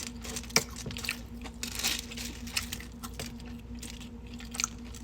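Close-up chewing and mouth sounds of a person eating a burger: scattered wet clicks and soft crunches, with a faint steady hum underneath.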